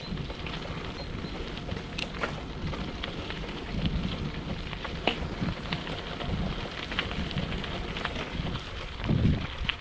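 Wind buffeting the microphone on a moving bicycle, a steady rumbling rush with scattered small clicks and crackles, and a stronger gust near the end.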